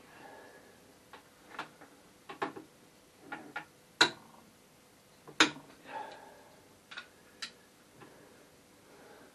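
Irregular metallic clicks and knocks of hand tools handled on engine parts, about fifteen sharp ones, the loudest about four and five and a half seconds in.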